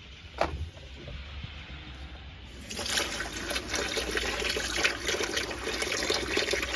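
A sharp knock, then tap water gushing from about two and a half seconds in, running over a freshly soldered solar-panel cable connector to cool the solder.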